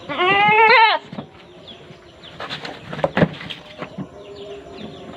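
A goat bleats once, a loud call just under a second long that rises slightly and then drops in pitch at its end. Handling noises and a sharp knock about three seconds in follow.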